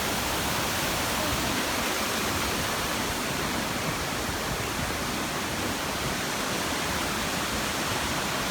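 Steady rush of a tall waterfall, water falling about 96 metres and crashing into its pool.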